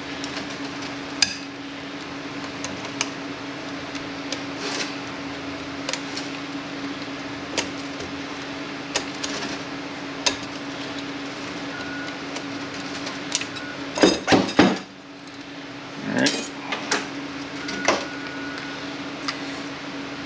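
Metal clicks and clinks of hand tools working on A6LF2 automatic transmission parts while a snap ring is taken out, with a quick run of several loud knocks about 14 seconds in, over a steady low hum.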